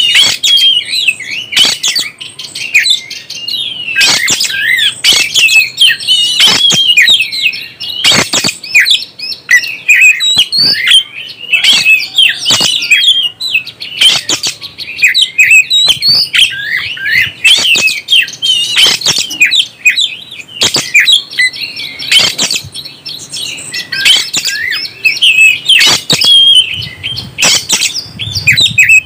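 Oriental magpie-robin (kacer) singing continuously: a fast, varied run of whistled chirps and short pitch glides, broken by many sharp clicking notes.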